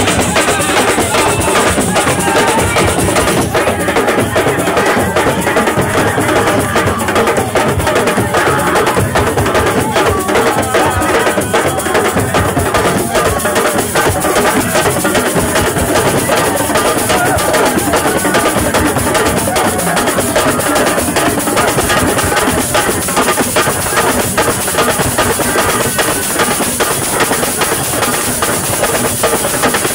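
Music carried by dense, continuous drum percussion, with sharp wood-block-like clicks among the drum strokes.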